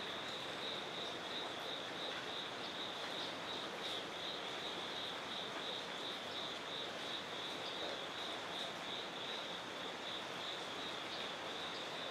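A steady, high-pitched insect trill, finely pulsing and unbroken, over a background hiss of outdoor noise, with a few faint ticks.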